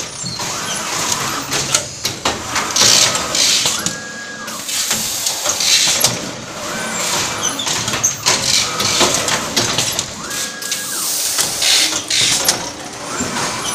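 CUDA CA430 automatic T-shirt folding and bagging machine running through its folding cycle: repeated short air hisses from its pneumatic cylinders, a motor whine that rises, holds and drops several times, and clacks of the folding plates.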